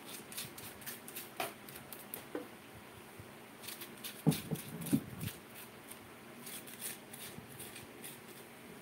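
Soft scraping and small clicks of a spoon and fingers scooping the flesh out of a cooked potato, with a few dull knocks about four to five seconds in.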